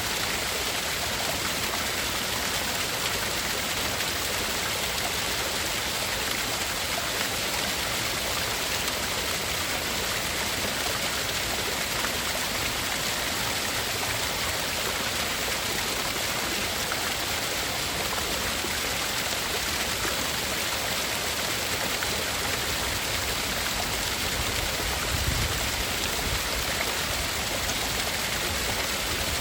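Steady, even rushing noise like flowing water, played as a tinnitus-masking sound. It is hiss-heavy and does not change, apart from a brief low rumble about 25 seconds in.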